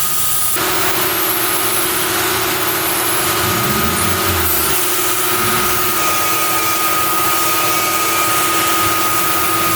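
Lathe running with a steady motor whine while it turns a Delrin bar into a ball-end shift knob.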